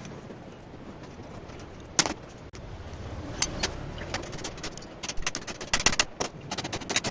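Sharp metallic clinks and knocks, as of tools and parts handled during differential bearing work: one sharp knock about two seconds in, then a quick, irregular run of clinks over the last two seconds, over a steady low background noise.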